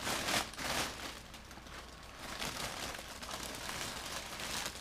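Crinkling and rustling of something being handled, with two louder rustles within the first second, then quieter continued rustling.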